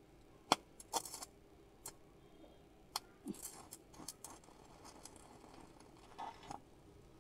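Stick (arc) welding on a thin, light-gauge steel pipe: a few sharp clicks as the electrode is struck against the pipe, then faint crackling and sizzling of the arc that comes and goes. The current is set at 74, too high for such thin pipe, so the arc burns a hole through it.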